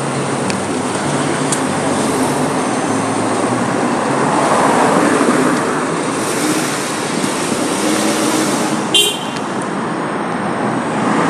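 Street traffic noise, with a Jeep Grand Cherokee SUV's engine running close by as it pulls out and drives past. A short, sharp toot, likely a car horn, sounds about nine seconds in.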